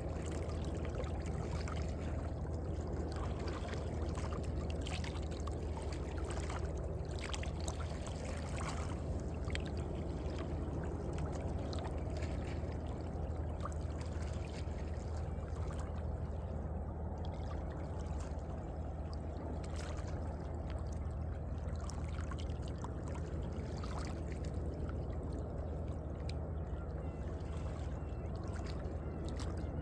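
Small sea waves lapping and sloshing in the crevices of shoreline rocks: a steady wash of water with frequent small splashes and trickles over a constant low rumble.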